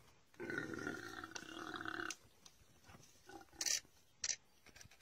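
An animal's drawn-out cry, held at a steady pitch for about a second and a half, followed by a few short, sharp noises about two seconds later.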